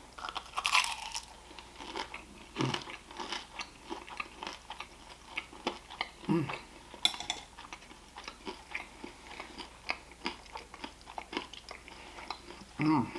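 Close-up mouth sounds of someone biting and chewing crunchy food, a pan-fried crab wonton: irregular crisp crunches and wet chewing clicks.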